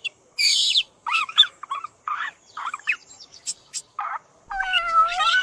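A small bird chirping in a string of short, separate calls, then a kitten's drawn-out meow starting about four and a half seconds in.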